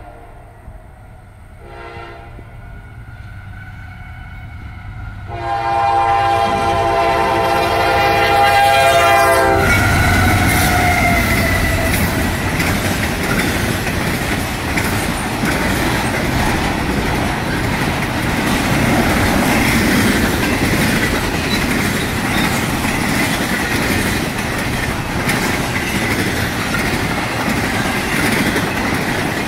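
Intermodal freight train at about 60 mph, led by an AC44C6M with a Nathan K5LA five-chime horn. The horn sounds a faint blast, a short one about two seconds in, then a long loud one from about five to nine seconds in as the train nears. The horn stops as the locomotives pass, and the long string of trailer and container cars then rolls by with a steady loud noise.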